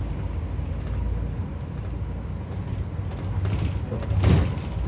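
Inside a moving minibus: the engine and tyre noise run steadily, with a brief louder noise about four seconds in.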